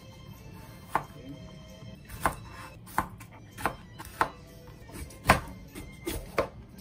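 Knife slicing mini bell peppers on a cutting board: about eight separate chops at irregular spacing, one sharper than the rest a little past the middle.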